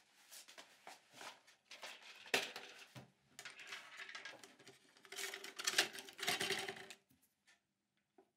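Objects being handled at a table: a busy run of clicks, taps and scrapes, loudest around two and a half seconds in and again past the five-second mark, stopping about seven seconds in.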